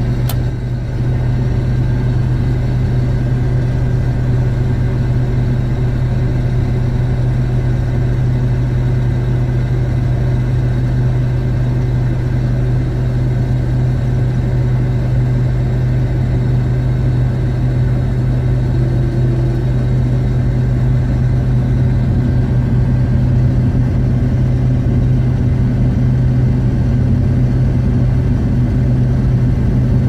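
A combine harvester's engine and unloading auger running at a steady drone with a strong low hum, heard from inside the cab while it unloads grain. One brief click just after the start.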